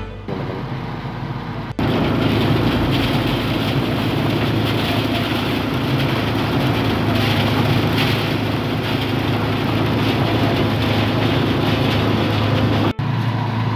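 Engine-driven paddy thresher running steadily while rice stalks are fed into its drum, a dense, even noise over an engine hum. A quieter engine sound in the first couple of seconds cuts abruptly to it.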